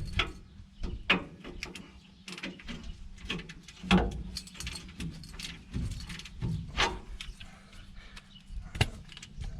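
Scattered, irregular metallic clicks and knocks of tools and parts being handled, with a few louder knocks.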